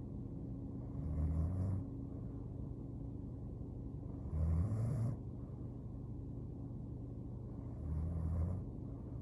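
A sleeping woman snoring: three low snores, each under a second, about every three and a half seconds, over a steady low hum.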